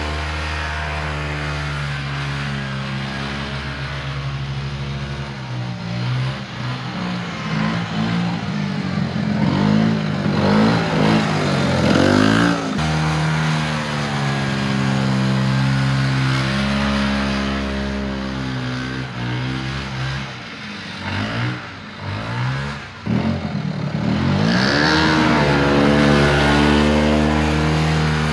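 1970 Evinrude Skeeter snowmobile engine running under way, holding steady for stretches and revving up and back down about ten seconds in and again near the end, with the throttle briefly dropping off a little past twenty seconds.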